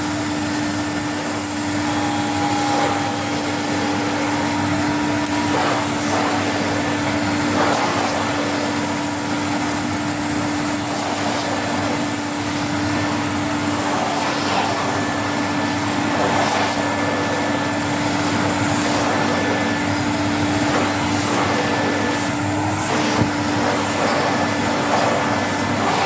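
1977 Electrolux Z345 cylinder vacuum cleaner with a 750-watt motor running steadily under load, sucking sand out of a carpet. It makes a constant hum over a broad rushing noise.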